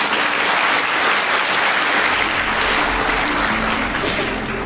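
Audience applauding: a dense, steady wash of clapping that eases off a little toward the end.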